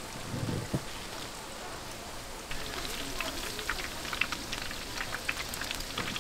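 Twigim deep-frying in hot oil, crackling and sizzling steadily, the crackle growing denser and louder about two and a half seconds in.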